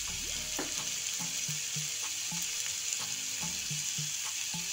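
Chopped onion, tomato and capsicum sizzling in hot oil in a non-stick kadai: a steady frying hiss.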